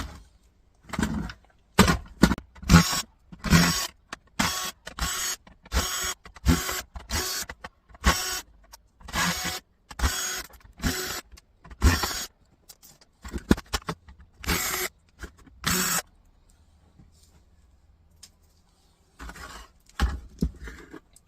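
Electric screwdriver run in many short bursts, backing screws out of a laptop docking station's case. There is a pause of a few seconds near the end.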